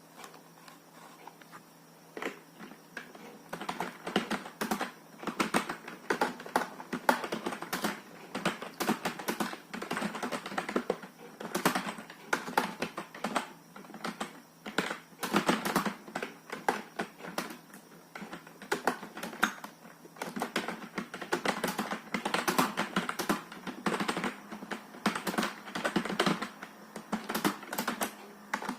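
Touch typing on a computer keyboard: a fast, uneven run of key clicks, soft at first and fuller from a few seconds in.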